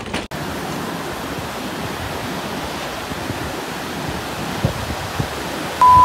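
Sea waves breaking and washing on the shore: a steady rush of surf. Just before the end, a loud steady beep at one pitch cuts in.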